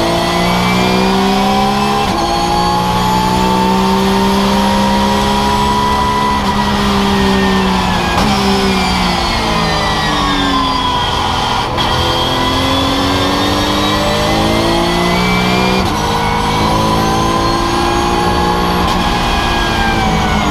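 Porsche 911 GT3 Cup race car's flat-six engine at racing speed, heard inside the cockpit: the revs climb and drop sharply at each gear change, sag in pitch through a slower stretch near the middle, then build again with more upshifts.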